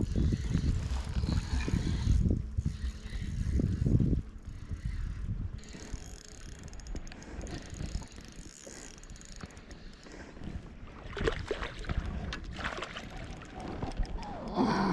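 Kayak on open water: low rumbling and knocking for the first few seconds, then quieter water and wind noise, with scattered clicks and rattles of handled gear near the end.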